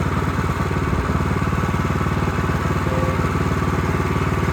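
Small gasoline engine of a Bushlander HM122 portable bandsaw sawmill running steadily at an even speed.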